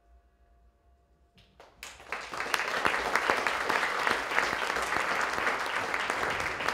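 A faint lingering note dies away, then about two seconds in a concert audience breaks into loud, sustained applause at the end of a live jazz piece.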